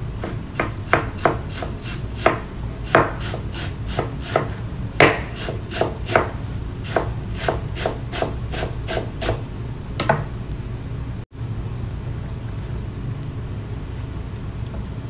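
Chef's knife chopping fresh coriander on a wooden cutting board: irregular strikes, about two to three a second, that stop about ten seconds in. A steady low hum runs underneath.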